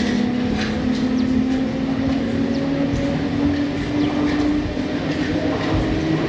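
Lagazuoi aerial cable car running: a steady mechanical rumble with a hum that slowly rises in pitch, and a few faint clicks.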